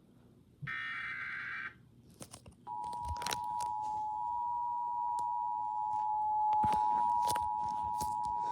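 Emergency Alert System broadcast: a buzzy data burst about a second long, typical of the SAME header bursts, then from a little under three seconds in the steady EAS attention signal, two tones sounded together near 853 and 960 Hz. Scattered sharp clicks sound over it.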